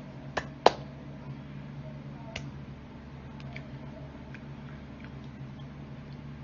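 A few sharp taps and clicks from a signer's hands striking together while signing in ASL, the loudest just under a second in, with fainter ones later. A steady low hum runs underneath.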